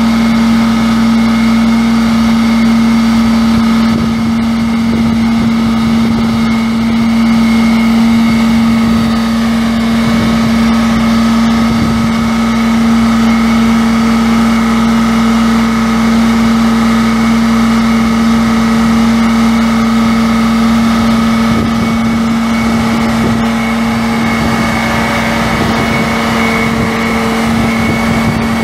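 Cummins six-cylinder turbo diesel engine of a bucket truck running steadily, with a strong, even whine over the engine sound.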